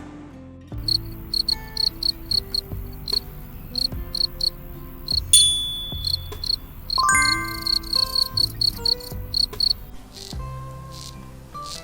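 A cricket-like insect chirping in short, rapid pulses that repeat a few times a second and stop about ten seconds in. Background music plays underneath, with a loud ringing hit about five seconds in.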